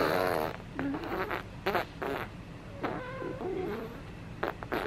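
Infant cooing and babbling in short, broken sounds, with a few sharp little clicks from the mouth.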